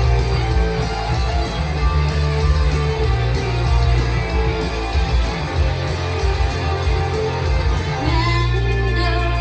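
Rock song with loud guitar. A female voice starts singing about eight seconds in.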